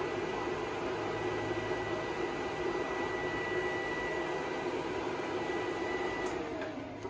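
A steady mechanical whir with a thin high whine, which stops a little after six seconds in as the whir dies away.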